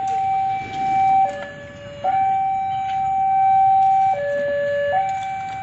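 A railway level crossing's electronic warning alarm sounds in two alternating tones, a higher tone held about two seconds and then a shorter lower one, repeating. It signals that a train is approaching, with the barrier arms still raised.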